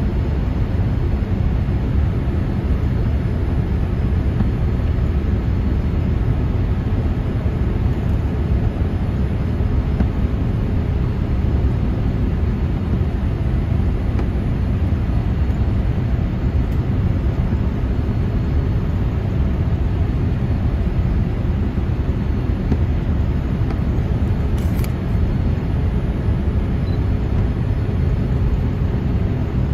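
Steady low cabin rumble of a Boeing 787-8 on final approach, heard from a window seat beside the wing: airflow and the Rolls-Royce Trent 1000 engines running.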